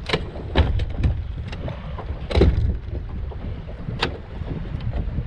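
Wind buffeting the microphone as a steady low rumble, with several knocks and clicks from gear being handled on a bass boat's front deck; the loudest knock comes about two and a half seconds in and a sharp click about four seconds in.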